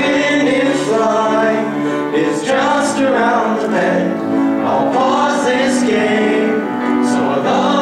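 Male voices singing a song with grand piano accompaniment.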